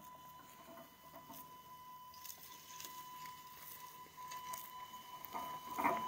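Electric wheelchair drive motors of a homemade battery-powered RC mower whining steadily as it drives over grass, with scattered light clicks, growing louder as the machine comes close.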